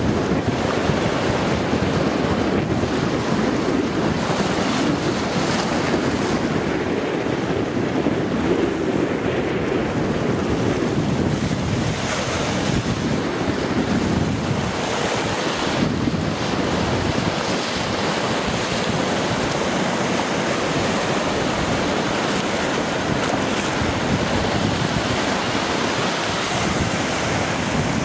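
Choppy sea waves washing and splashing, with strong wind buffeting the microphone. The sound is a steady, dense rush with no breaks.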